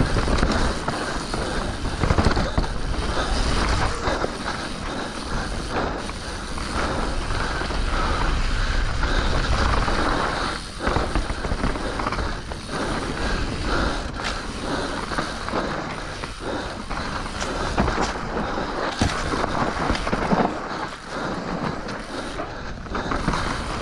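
Mountain bike ridden fast down a dirt trail: tyres rolling and skittering over packed dirt and loose stones, with the bike rattling and clicking over the bumps.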